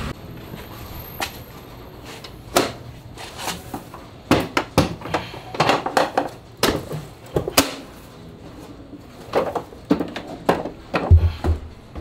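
Hard plastic clicks and knocks of a Festool dust extractor's latches and top housing being unclipped and lifted off its dust container, a run of irregular sharp clacks, with a dull thud about 11 seconds in as the top is set down.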